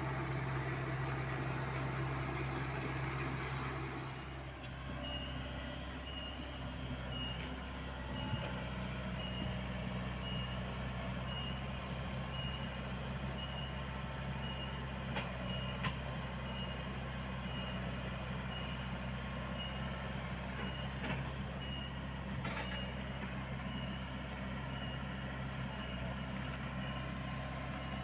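Komatsu PC75UU mini excavator's diesel engine running steadily. A few seconds in, a high-pitched travel alarm starts beeping evenly, a little under two beeps a second, with a few sharp knocks.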